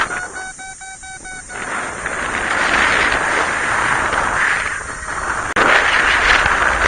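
Wind rushing over the microphone in gusts during a paraglider flight, with a flight variometer beeping rapidly for about a second near the start, the quick beeps of a climb.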